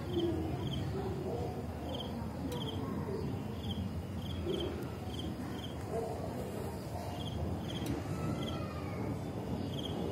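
An insect chirping outdoors at night in short high chirps, often in pairs, about every half second, over a steady low background rumble.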